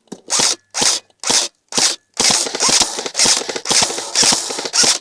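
Airsoft guns firing on full auto: four short bursts about half a second apart, then near-continuous firing from about two seconds in.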